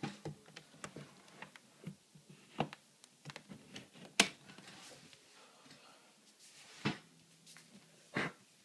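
Scattered light clicks and knocks of small makeup items and their plastic storage being handled, the sharpest a little before halfway, with two more near the end.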